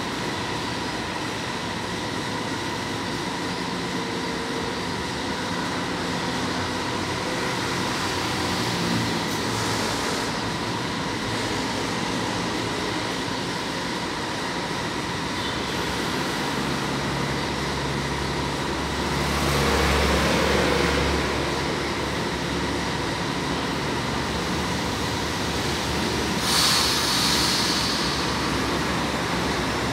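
São Paulo Metro train standing at the platform, its equipment humming steadily under a thin, steady high tone. A deeper rumble swells and fades between about sixteen and twenty-one seconds in, and a short hiss comes near the end.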